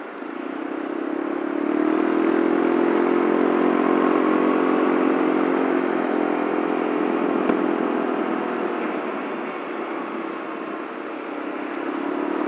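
Yamaha Mio Soul scooter's single-cylinder four-stroke engine under way: it opens up about a second in and runs steadily, eases off late on, then picks up again at the very end.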